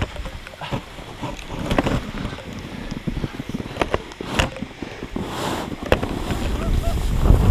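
Irregular crunching steps and scuffs in deep snow, with gusts of wind buffeting the microphone that grow stronger near the end.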